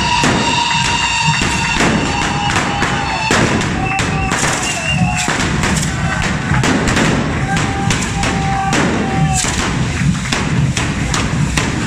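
A dense barrage of hand-held carretilla fireworks: a continuous hiss of spark fountains, cut by many sharp bangs and cracks as the charges burst. Drumming runs underneath, and a few held whistling tones come and go.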